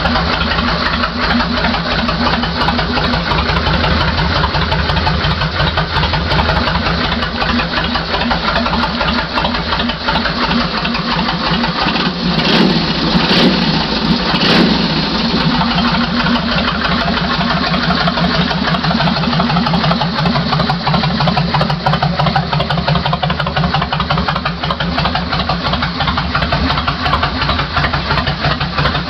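Kawasaki Vulcan 1500 Classic's V-twin idling through aftermarket Vance & Hines pipes with an even, loping throb. About halfway through it is briefly revved, then settles back to idle.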